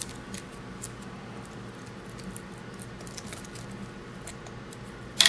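Small socket ratchet clicking faintly and irregularly as screws are backed out of a Hydra-Cell pump's end plate, with a sharper metallic click near the end.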